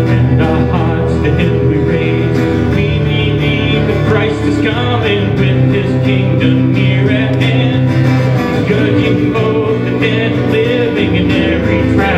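Country-style music with guitar and singing.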